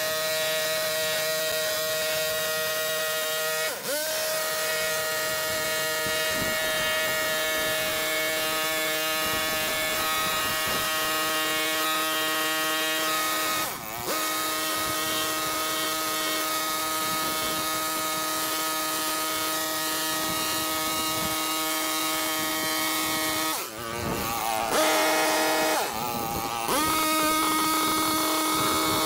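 Stihl KombiSystem power tool running at high speed along a boxwood hedge, with a steady, even-pitched engine whine. The speed dips briefly twice and then drops and rises several times near the end as the throttle is eased and opened again.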